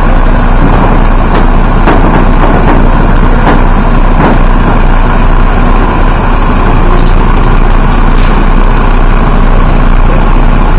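A vehicle engine running steadily close by, with a few short knocks over it.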